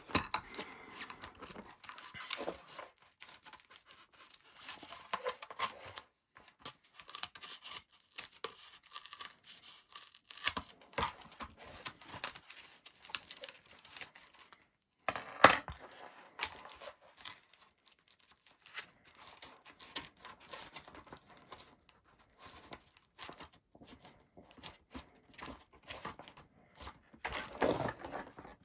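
Hands working on small parts: scattered rustling and light clicks, with one sharper click about fifteen seconds in.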